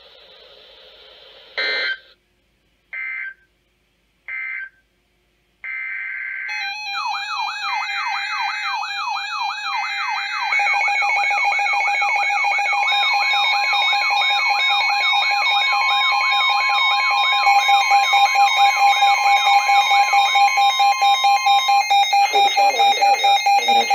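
NOAA Weather Radio emergency alert tones. Three short digital data bursts come first, then longer data bursts, while weather radios sound their alert alarms over them: a fast warbling siren tone, a steady alert tone and beeping. Rapid pulsed beeping joins about two-thirds of the way through.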